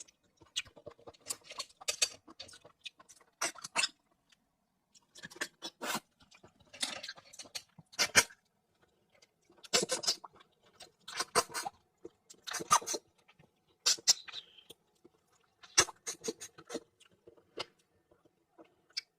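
Close-miked eating of seafood: short wet sucking slurps and chewing, in irregular bursts about every second.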